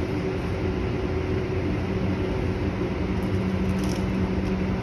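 Steady low mechanical hum of commercial kitchen equipment, with a few faint ticks about three to four seconds in.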